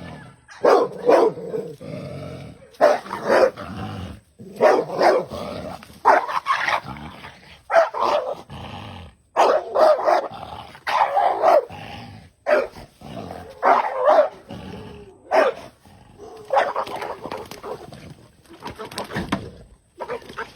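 A dog barking over and over, in loud separate barks that come one or two a second.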